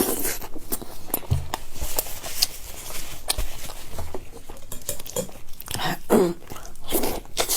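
Close-miked eating sounds: a person biting and chewing food, with many short wet clicks and smacks. A brief murmur about six seconds in.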